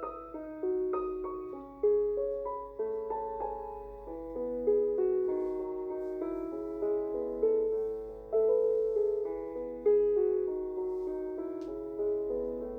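Soft background piano music, a slow melody of struck notes with chords.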